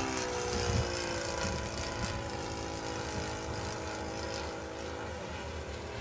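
Saito 100 single-cylinder four-stroke glow engine of a radio-controlled model plane running in flight, a steady pitched drone overhead. The note fades out about five seconds in.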